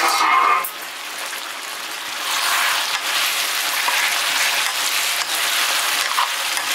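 Chicken curry with tomatoes sizzling in a pan, a steady hiss that grows louder about two seconds in, after a short louder sound at the very start.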